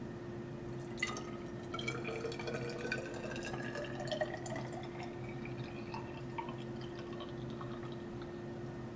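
Sodium chloride solution poured from a glass beaker into a glass graduated cylinder, splashing and trickling, the pitch of the filling rising as the cylinder fills. A small tap about a second in, and a steady low hum underneath.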